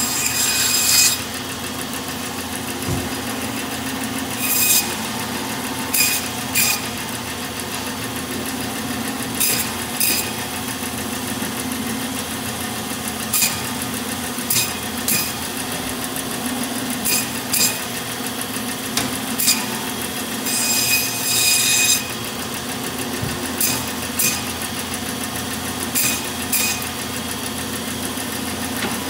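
Meat band saw running with a steady hum, its blade rasping through beef short rib bone in many short bursts, one longer cut about two-thirds of the way through.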